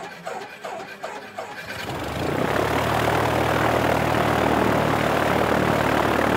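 Sound effect of a light propeller aeroplane's engine, swelling up about two seconds in and then running loud and steady.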